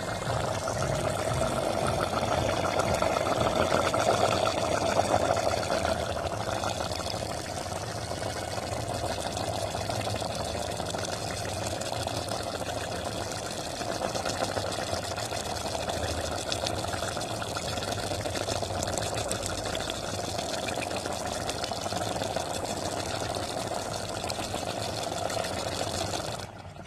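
Chicken curry simmering and bubbling in the pot: a steady noise of fine crackles.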